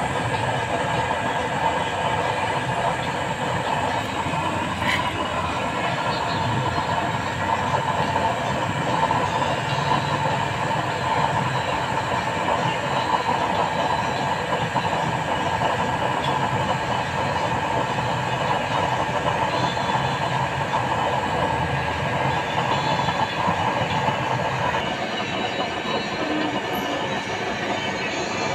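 Homemade waste-oil stove burner running steadily: the rushing noise of the forced-air flame together with the small electric blower fan that feeds the burner through a pipe.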